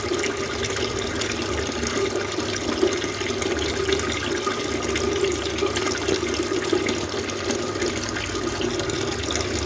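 Water fountain running: a steady splashing of falling water with many small droplet splashes.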